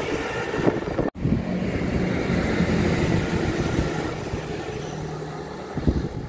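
Passing diesel trains. The rumble of a CrossCountry Voyager multiple unit going away is cut off about a second in, then a GWR diesel multiple unit approaches with a steady engine drone.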